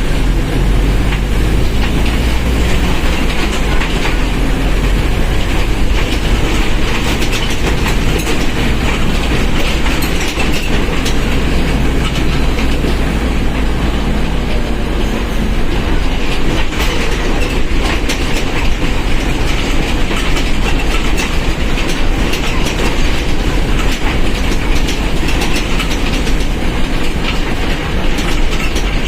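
A Mercedes-Benz OF1721 BlueTec 5 bus underway. Its drivetrain and rear differential keep up a steady heavy low drone, with frequent clattering rattles on top.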